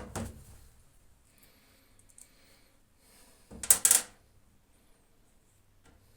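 Hard objects being handled: a sharp knock at the start and a short clatter of sharp clicks about four seconds in, with quiet between.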